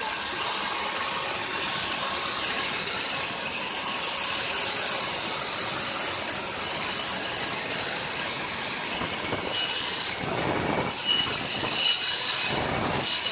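Electric angle grinder running steadily. About ten seconds in, its abrasive disc goes back onto the andesite block and the sound turns rougher and uneven as it grinds out the hollow of a stone mortar.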